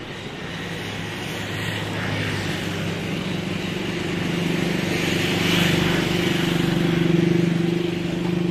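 A motor vehicle engine running steadily, growing louder from about halfway through.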